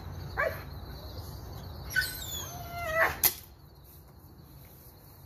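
A few short, high-pitched animal cries, each sliding down in pitch, and a sharp knock about three seconds in.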